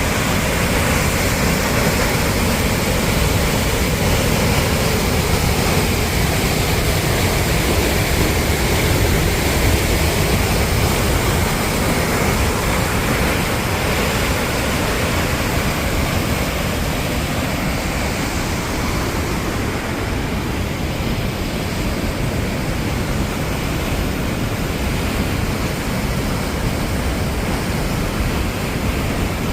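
Steady roar of a large waterfall, Sol Duc Falls, with the water pounding into its gorge.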